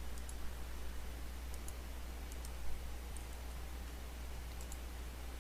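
Faint computer mouse clicks, several quick press-and-release pairs, over a steady low hum and hiss.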